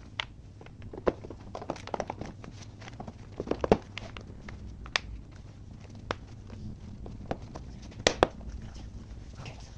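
Plastic air filter housing of a Toyota Avensis being fitted back into the engine bay by hand: scattered light clicks and knocks of plastic as the box and its cover are set and pressed into place, with a sharper double knock about eight seconds in.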